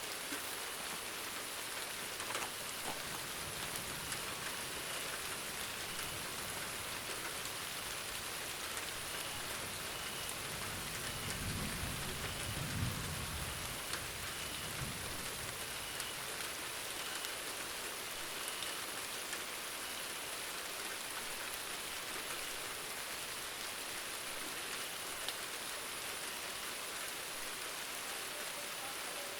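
Steady rain pattering on a surface, an even hiss with the odd sharp drip. About halfway through, a low rumble of distant thunder swells and fades over a few seconds.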